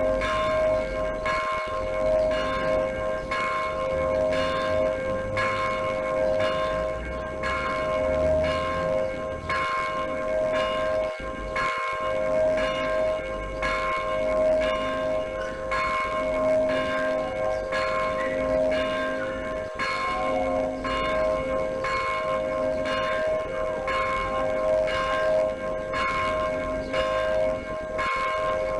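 Church bells ringing steadily, struck about once a second, each stroke renewing ringing tones that hang on between strikes, with a lower bell sounding every couple of seconds.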